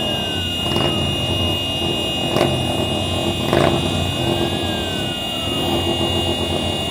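An air-raid siren wails, its pitch slowly rising and falling, over motorcycle engines running and revving. Three sharp bangs come in the first four seconds.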